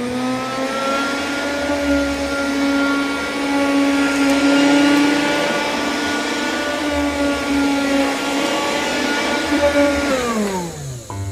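Vacuum cleaner motor running: a steady whine over rushing air, which winds down in pitch and stops near the end.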